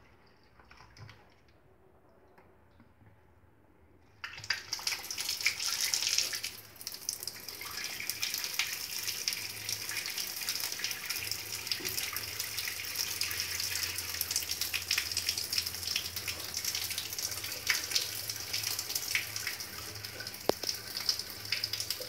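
Water from an opened wall tap running through a washing-machine inlet hose and pouring out of its end into a sink. It starts suddenly about four seconds in, is loudest for the next couple of seconds, then runs steadily.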